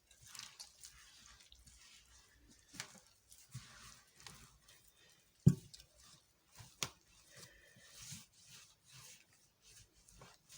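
Soft, irregular squishing and patting of yeast dough being mixed and gathered by hand in a bowl, with two sharp knocks a little past the middle.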